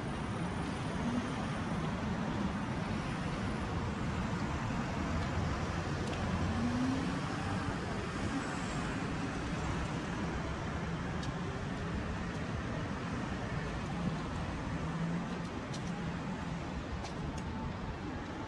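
Steady city street traffic noise: cars and vans driving past, a continuous low rumble.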